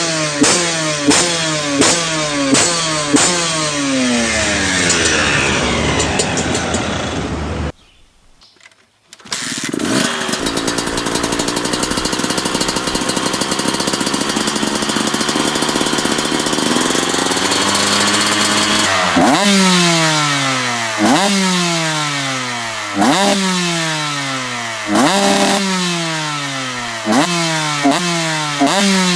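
Two-stroke dirt bike engines being revved: quick throttle blips about twice a second that each rise and fall, a short break at about eight seconds, a long stretch held at high revs, then from about twenty seconds sharp revs roughly every two seconds, each dropping back toward idle.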